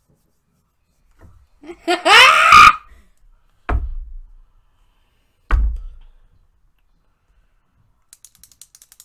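A loud, high-pitched shriek of laughter lasting under a second, about two seconds in, followed by two dull thumps a couple of seconds apart. Faint rapid light clicks start near the end.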